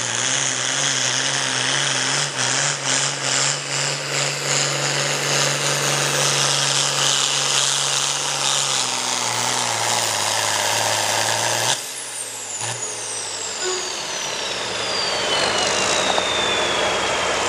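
Turbocharged diesel engine of an International Harvester pro farm pulling tractor running flat out under load, with a high turbo whistle over it. About twelve seconds in the power is cut: the engine note drops away and the turbo whistle falls steadily in pitch as it spools down.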